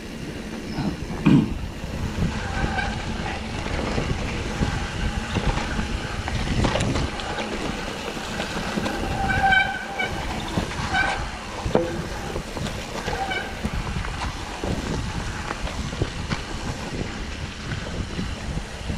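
Mountain bike running down a dirt trail, heard from a camera on the bike or rider: steady wind rush on the microphone, tyres on dirt and the bike rattling over bumps, with a few short high squeals.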